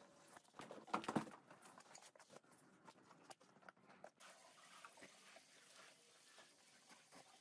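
Faint wet slaps and crackles of a soaked rug being unrolled onto a wet concrete floor, bunched about a second in, then scattered soft ticks. After about four seconds only a faint hiss is left.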